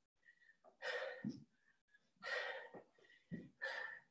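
A person breathing hard through a microphone from the exertion of lunges. There are three heavy breaths, about a second and a half apart.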